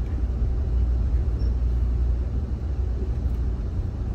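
Amtrak passenger car rolling in reverse, a steady low rumble heard from inside the coach.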